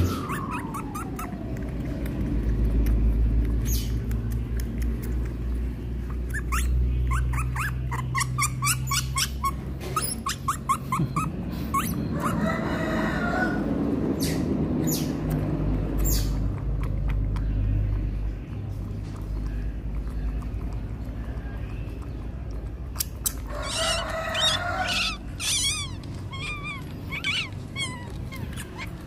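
Otter pup squeaking and chirping in quick runs of short, high calls while suckling from a feeding bottle, over a steady low rumble.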